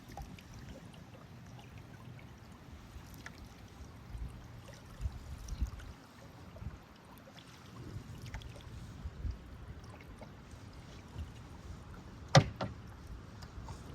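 Canoe being paddled: quiet paddle strokes and water trickling off the blade, over a low uneven rumble. There is one sharp knock near the end.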